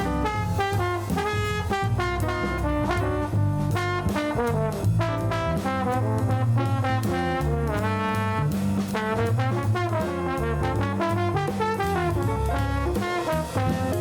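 Background music with brass, trombone and trumpet lines over a steady bass and drums, jazzy in style.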